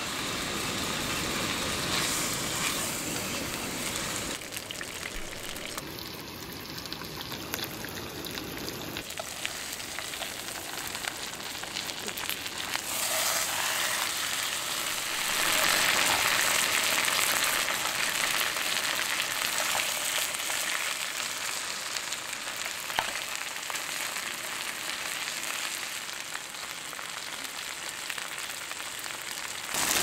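Thick bone-in steak sizzling and frying in hot oil in a pan over a portable gas burner on high flame, a steady hiss that grows louder for a few seconds about halfway through.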